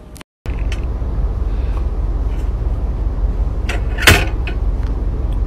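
Steady low rumble of a moving car heard from inside the cabin, with a few sharp knocks and rattles from the wire door of a plastic pet carrier, the loudest about four seconds in.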